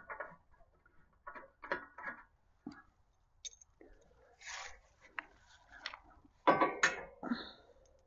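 Scattered light knocks, clinks and rubbing of hand tools and hands on the truck's metal grille as it is worked loose, with a louder cluster of sounds near the end.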